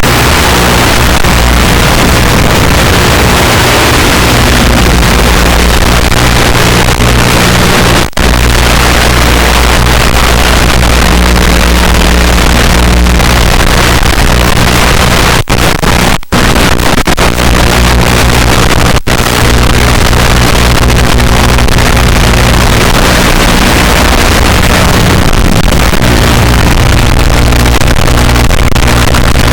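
Motor and propeller of a profile aerobatic RC plane running steadily in flight, a loud hum mixed with rushing wind on the onboard microphone, its pitch shifting slightly with throttle. The sound cuts out for an instant a few times, around a third of the way in and again a little past the middle.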